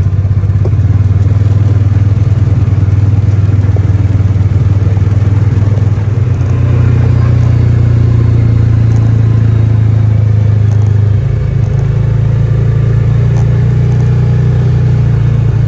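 Engine of a small open utility vehicle running steadily as it drives, its note stepping up about six seconds in and shifting again a few seconds later.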